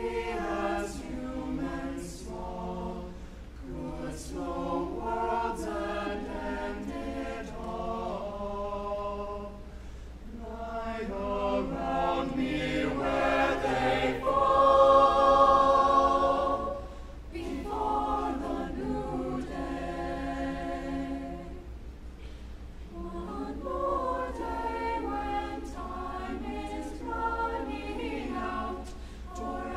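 Chamber choir of young voices singing in harmony, unaccompanied. The singing swells to its loudest about halfway through, then falls back to a softer level.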